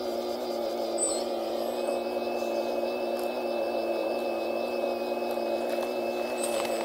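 The hydraulic pump motor of a radio-controlled Kobelco excavator model running with a steady, even hum while the bucket digs into soil. Short high chirps come about a second in and again near the end.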